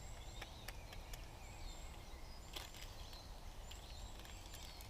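Small birds chirping and calling in the background, with a few light clicks and taps scattered through, over a low steady rumble.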